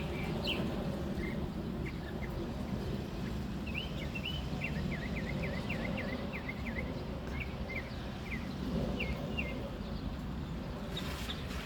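A small male songbird singing to attract a mate: scattered short chirps, then a quick run of rising and falling notes in the middle, over a steady low rumble of background noise.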